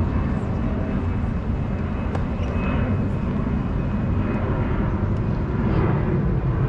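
Steady low outdoor rumble, with a few faint knocks of a tennis ball being bounced and hit on the court.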